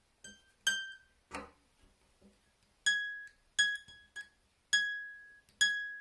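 A high harp string plucked twice open, then a click as the Camac sharping lever is flipped up, and the same string plucked four more times with the lever engaged, a semitone higher. Each note rings briefly. The player is checking the lever's regulation, and she finds the raised note just about right, ever so slightly sharp.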